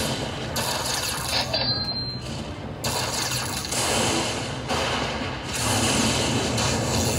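Slot machine's electronic spin sounds: a mechanical-sounding whirring and ticking as the reels spin, mixed with the game's music.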